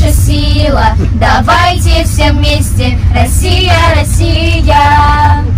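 A group of girls singing a song about Russia together, with some notes held long, over a steady low rumble.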